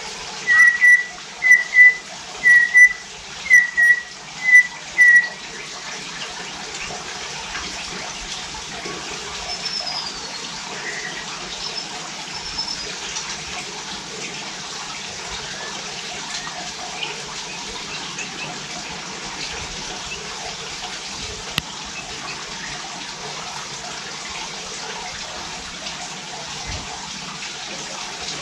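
White-rumped shama (murai batu) whistling a run of about seven short, loud, repeated notes, roughly one every 0.7 s, stopping about five seconds in. After that there are only a few faint scattered calls over a steady rushing hiss.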